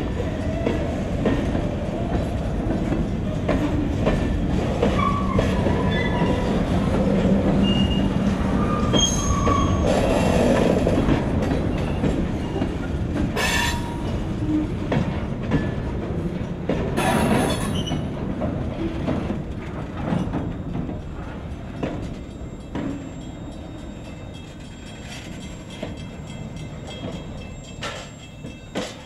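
Loaded freight hopper cars rolling slowly past on the rails: a steady rumble of steel wheels with a few short wheel squeals in the first half, and two sharp metallic clanks about 13 and 17 seconds in. The rumble dies away over the last several seconds as the cars draw off.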